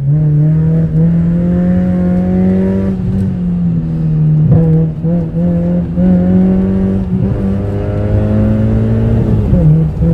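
Mazda 6 petrol engine and exhaust pulling under acceleration: a loud, steady drone that climbs slowly in pitch and drops back at gear changes, about three seconds in and again near the end. The owner finds the exhaust note far too loud.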